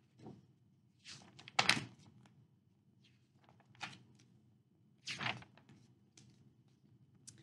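Pages of a paperback picture book being turned and handled: a few short paper swishes and rustles, the loudest about a second and a half in and again about five seconds in, with faint ticks between.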